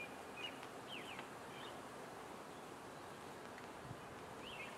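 A small bird chirping a few short rising and falling notes, over a steady soft hiss of light drizzle.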